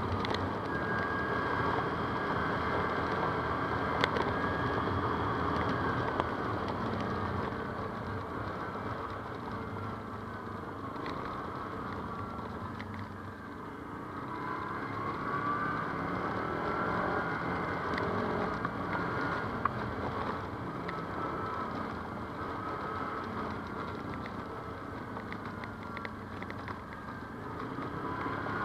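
ATV engine running under way off-road, its pitch rising and falling with the throttle, with a dip in level about halfway through.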